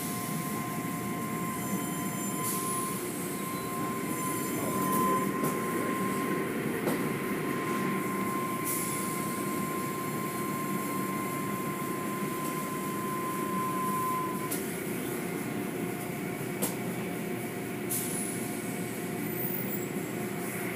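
Automatic tunnel car wash running: a steady rush of water spray and cloth mitter strips washing over the vehicle, heard through the car's glass, with a steady high whine that stops about two-thirds of the way through and a few short slaps.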